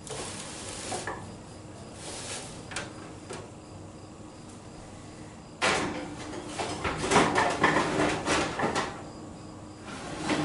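Metal oven rack and baking sheet clattering as pies are set into a hot oven. A few light knocks come first, then from about halfway through a sudden burst of scraping and rattling that lasts a few seconds.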